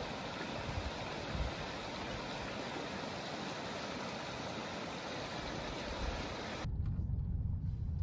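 Steady rush of river water running over shallow riffles. About two-thirds of the way through it cuts suddenly to the low rumble of a vehicle driving, heard from inside the cab.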